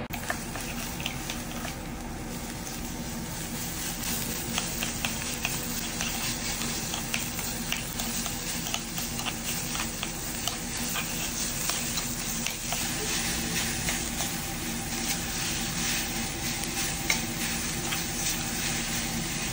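Beef sizzling on a yakiniku grill: a steady crackling hiss with many small pops of fat, a little louder after about four seconds.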